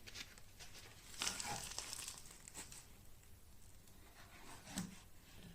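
Quiet workbench handling noises: a few small clicks and knocks, with a brief rustle about a second in.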